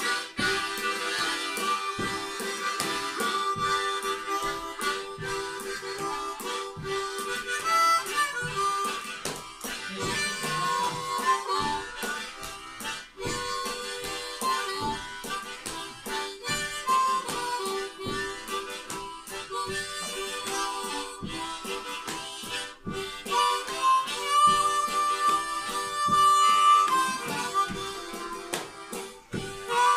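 Blues harp (diatonic harmonica) played in a blues jam: a steady held note under a moving melody line of short and sustained notes.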